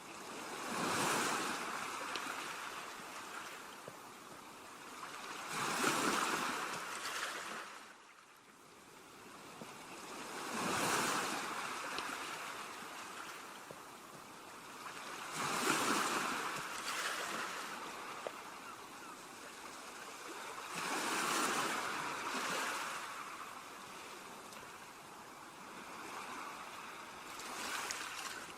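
Ocean waves washing onto a beach: six surges, one about every five seconds, each swelling and then fading back.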